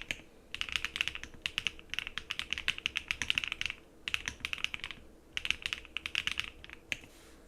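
Typing on a Luminkey 65 mechanical keyboard with HMX Emo switches: quick runs of keystrokes in several bursts with short pauses between them, ending on a single keystroke about seven seconds in.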